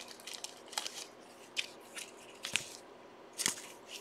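Panini Mosaic basketball trading cards being handled and flipped through by hand: a handful of short, crisp clicks and crackles, the loudest about two and a half and three and a half seconds in.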